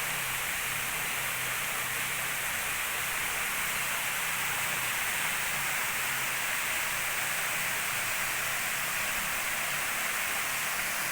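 Waterfall water rushing steadily, a constant even hiss with no breaks.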